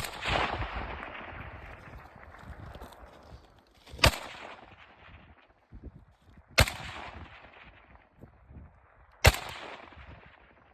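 Four single gunshots a few seconds apart, each a sharp crack followed by a long rolling echo that fades over a couple of seconds.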